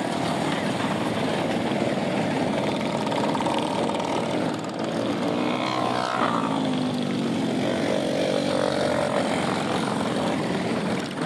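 A pack of mini bikes' small engines buzzing together as they ride in a group. About six seconds in, one engine's pitch rises and falls as it passes close.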